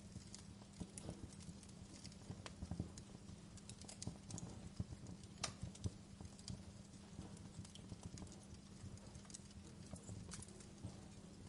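Wood fire burning in a fireplace: irregular sharp crackles and pops from the burning logs over a steady low rumble, with one louder pop about halfway through.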